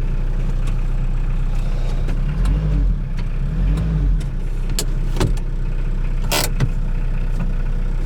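Hyundai Porter truck's diesel engine idling steadily, rising and falling in two brief revs about two and a half seconds in, with a few sharp clicks later on.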